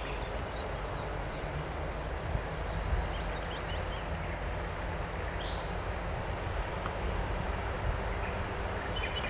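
Low, steady rumble of a PKP ET22 six-axle electric locomotive running light as it approaches slowly. A bird chirps in quick runs of short high notes during the first few seconds.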